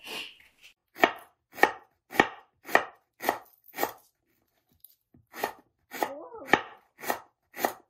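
Chef's knife slicing lemongrass stalks into thin rounds on a bamboo cutting board: steady knocks of the blade on the wood, about two a second, with a pause of a second or so midway.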